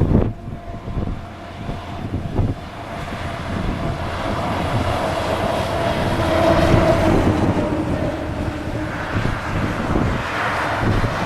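Boeing 737-800's CFM56 jet engines on landing approach, growing louder with a steady whine that peaks about halfway through, then a broad rushing hiss near the end. Wind gusts on the microphone thump in the first few seconds.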